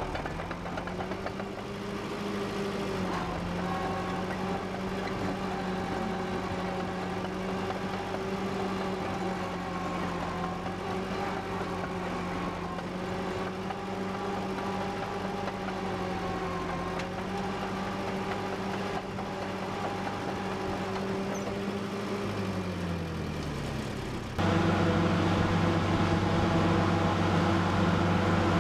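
Allis-Chalmers HD-6 crawler dozer's engine running steadily, dipping briefly about two seconds in and slowing down a few seconds before the end. After a sudden cut, a louder steady tractor engine runs for the last few seconds.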